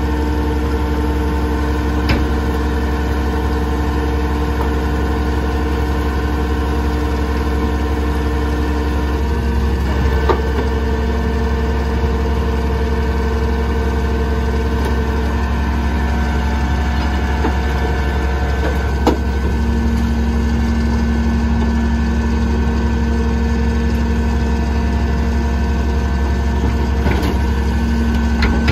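Leach Sanicruiser rear-loader garbage truck running steadily while a container is held tipped over the hopper. Its hum carries several steady whining tones that shift to new pitches a few times, with a few metallic clanks.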